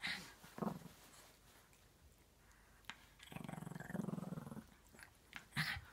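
Shih Tzu giving a low growl, a little over a second long, midway through while it rolls and wriggles in play on a duvet. A few short scuffles before and after.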